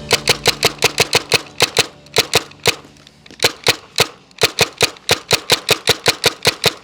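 Tippmann TMC paintball marker firing semi-automatic as fast as the trigger can be pulled, about five shots a second, with a brief pause about three seconds in.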